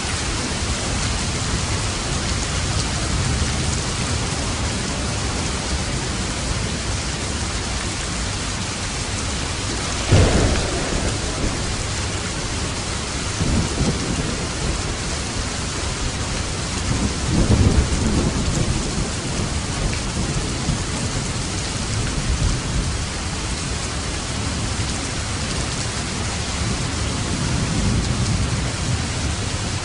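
Steady rain on a roof with thunder. A loud thunderclap comes about ten seconds in, followed by low rolling rumbles a few seconds later and again about a third of the way from the end.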